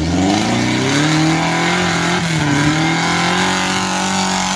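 Small off-road 4x4's engine revving hard as it climbs a steep muddy slope. The revs rise over the first second, then hold high and steady under load.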